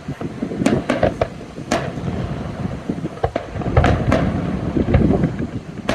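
Fireworks exploding: a string of irregular booms and sharp cracks, with a heavy low rumble and wind noise on the microphone.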